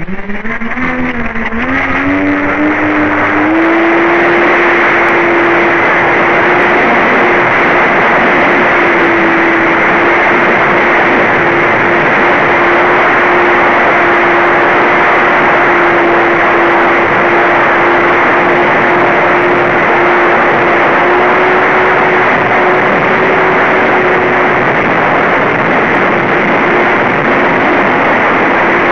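Twinstar RC plane's twin electric motors and propellers spinning up, rising in pitch over the first few seconds, then running at a steady pitch in flight under a dense steady hiss.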